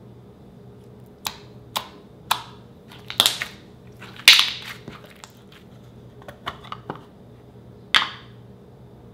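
Thick slime being squeezed and pressed between the hands, giving off a series of sharp, irregular pops and crackles, the loudest about four seconds in and one more near the end.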